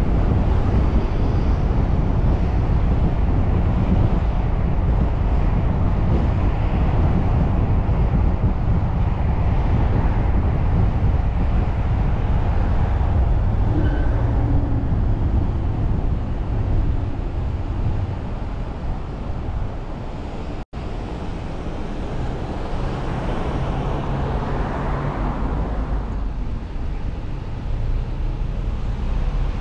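Steady low rumble of road and tyre noise from a car driving along a city street in traffic. The sound cuts out for an instant about two-thirds of the way in, and a swell of passing traffic noise follows.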